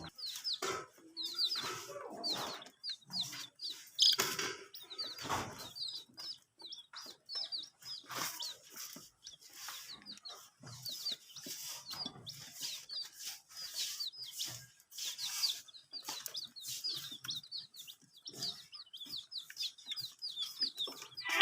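Baby chicks peeping continuously, short high peeps coming in quick runs, with scattered soft knocks among them.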